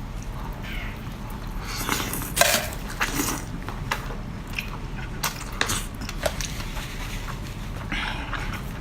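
Close-miked eating of a big mouthful of spicy seafood: biting and chewing, with scattered wet smacks and small crunchy clicks, busiest about two seconds in and again around five seconds.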